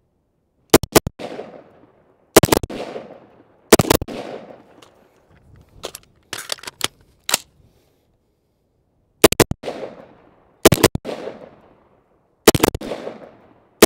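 Rifle fired in quick doubles: seven pairs of shots, the two in each pair about a fifth of a second apart, each crack followed by a short echo. A few fainter cracks come in a lull about halfway through.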